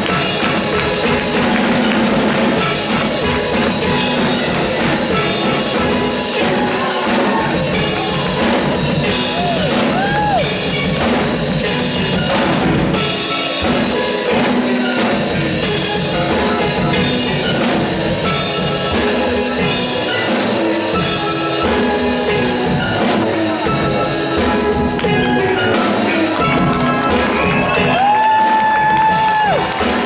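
Steel band playing: steel pans with a drum kit, running without a break, and a few short sliding high calls over the top near the end.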